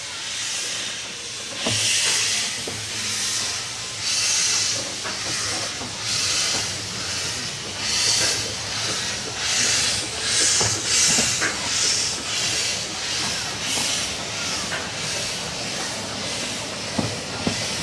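Narrow-gauge steam locomotive chuffing as it pulls away, each exhaust beat a hissing puff of steam, the beats coming quicker as the train gathers speed. A few sharp clanks from the couplings or wheels are heard along with it.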